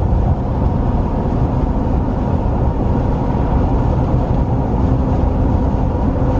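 A car driving along a road, heard from inside: a steady, loud rumble of road and wind noise.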